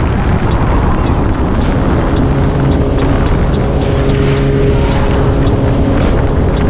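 Heavy wind rushing over a helmet-mounted microphone on a motorcycle at highway speed, with the bike's engine humming at steady revs underneath, its note coming through more clearly from about two seconds in.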